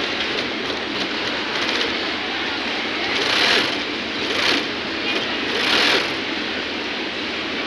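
Industrial feed-off-the-arm sewing machine running steadily as it stitches a seam through heavy fabric fed through its folder. It grows louder three times: about three seconds in, at four and a half, and near six.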